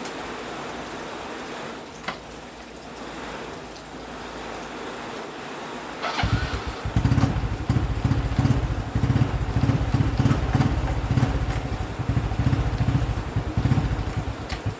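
A steady hiss, then a motorbike engine starts about six seconds in and runs with a rapid, uneven low beat.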